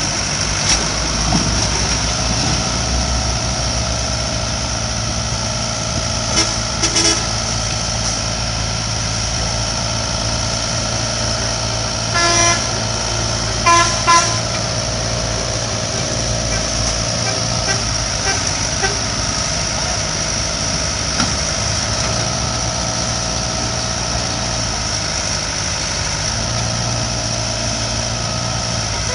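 Sumitomo 165 excavator's diesel engine running steadily as the machine works its way up onto a lowbed trailer. Short vehicle horn toots sound a few times, around a quarter of the way in and again near the middle.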